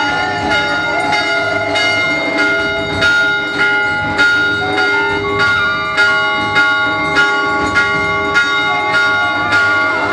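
Temple bells ringing in a steady beat of strikes, about two a second, over temple music with long held notes and a wavering melody near the start and end.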